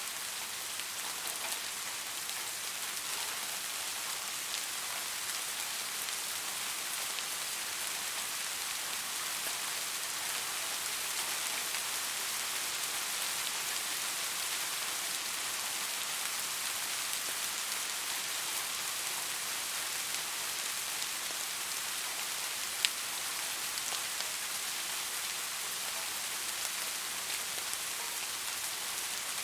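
Soft steady rain, a dense hiss of fine drops pattering on a surface, with one sharp drop-like click about 23 seconds in.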